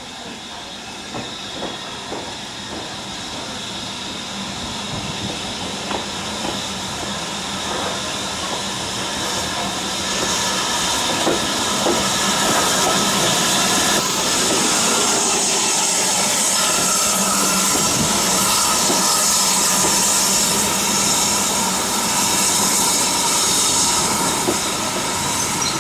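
BR Standard Class 4 2-6-4 tank steam locomotive and its coaches passing close by, growing louder over the first ten seconds. Steam hisses, with clicks and knocks from the wheels and running gear, and the hiss is the loudest part from about ten seconds in.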